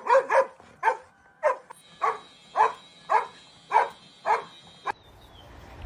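A dog barking over and over, about two barks a second, stopping about five seconds in.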